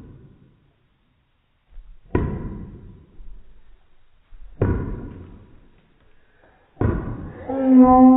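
Three heavy thuds about two and a half seconds apart, each ringing briefly as it fades, then a girl's high, held cry of delight near the end that cuts off suddenly.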